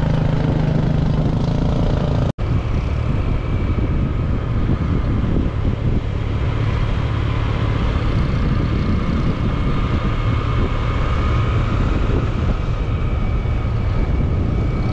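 Small motorbike running at road speed, a steady engine drone mixed with heavy wind rumble on the bike-mounted camera's microphone. The sound drops out for an instant about two seconds in, at an edit cut, then the ride noise carries on unchanged.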